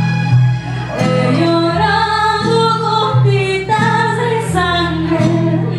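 A woman singing a song with guitar accompaniment over held low bass notes.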